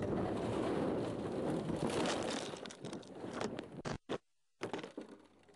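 A car crashing: a loud rushing, scraping noise with a run of knocks and clatters as the Jaguar road car goes off and rolls, fading and then cutting out abruptly about four seconds in.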